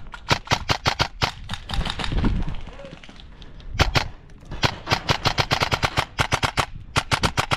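Airsoft rifle firing rapid strings of sharp shots: a burst in the first two seconds, a pause of about two seconds, then a longer string of shots from about four seconds in.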